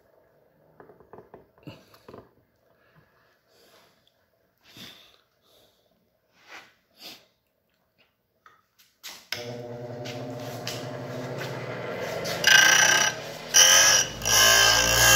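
Small metal clicks and knocks as a drill bit is tightened into a sharpening jig. About nine seconds in, a bench grinder switches on and runs with a steady hum, and from about twelve seconds the bit's tip is ground against the wheel in three short, loud grinding passes.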